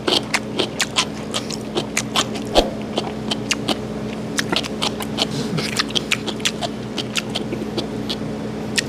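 Close-miked eating sounds: chewing with many irregular small mouth clicks and taps, over a steady low hum.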